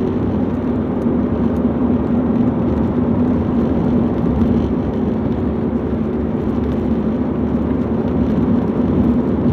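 Steady road noise of a moving car heard from inside: tyre rumble with a constant low drone.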